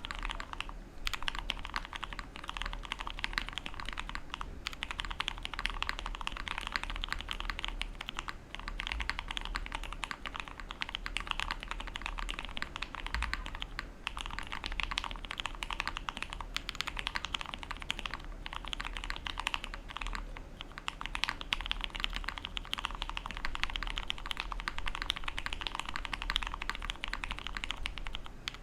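Fast, continuous typing on a Bakeneko60 mechanical keyboard with tactile Cherry MX Brown switches mounted on an aluminium plate, many keystrokes a second with a few short pauses.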